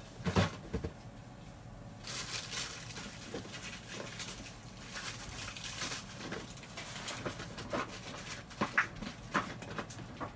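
Faint rustling and handling of small parts, with a few sharp clicks and taps about nine seconds in, as someone rummages for heat shrink tubing.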